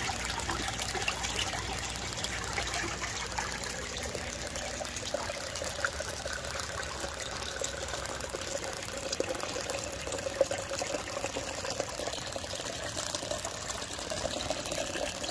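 Steady rush of water from an aquaponics grow bed's 1.5-inch U-siphon in full siphon, draining through the PVC pipe into the sump.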